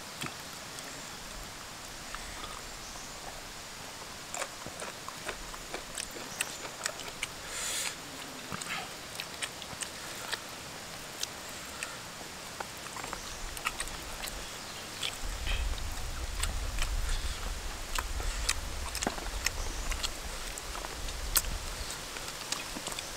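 Close eating sounds: chewing, lip smacks and small clicks as two people pick rice and chicken off a banana leaf with their fingers and suck the bones, over a steady hiss. A low rumble comes in about 15 seconds in and fades out a few seconds before the end.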